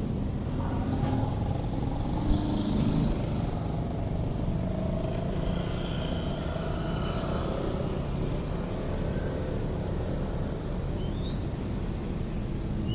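Urban playground ambience: a steady hum of road traffic with faint, indistinct voices and shouts of children at a distance.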